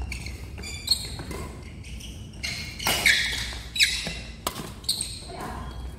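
Badminton rally: sharp racket strikes on the shuttlecock, about five spread through the six seconds, among the players' footsteps on the court floor.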